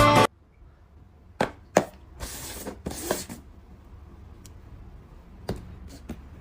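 Music cuts off just after the start. Then come a few sharp clicks and knocks, two short hissing rustles about two to three seconds in, and two more knocks near the end, over a low steady hum.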